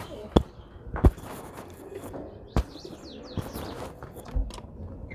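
Domestic pigeons cooing in a loft, with three sharp knocks in the first half and some short high chirps in the middle.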